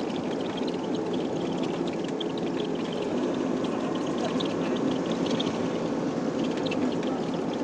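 Steady engine and road noise of a car, heard from inside the cabin while it drives along.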